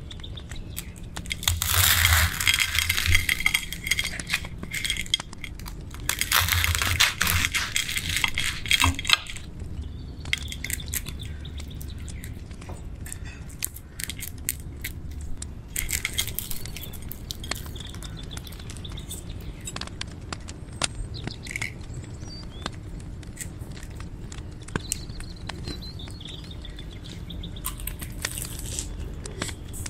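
A knife sawing through the crisp breadcrumb crust of deep-fried rice balls. There are two stretches of loud crunching, about a second in and again around six seconds in, followed by quieter scattered crackles as the crust is broken and handled.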